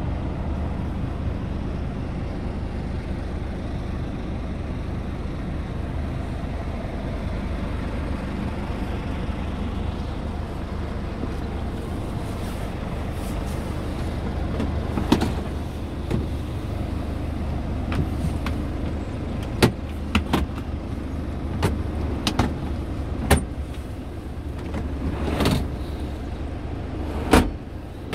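Scania R tractor unit's engine idling steadily, heard from inside the cab as a low, even hum. In the second half, sharp clicks and knocks of the cab's plastic fittings and storage bin lids being handled.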